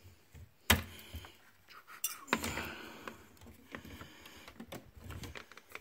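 Hands handling an Efergy plastic clip-on current sensor and its cable: a sharp click about a second in, two more clicks around two seconds in, and light rustling.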